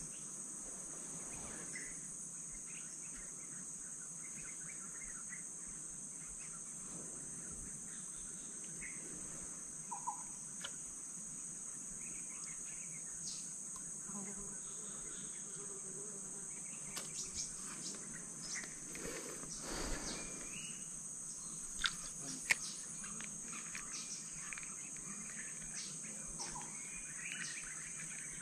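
Steady, high-pitched drone of a forest insect chorus, with a few scattered sharp clicks, the two loudest close together about three quarters of the way through.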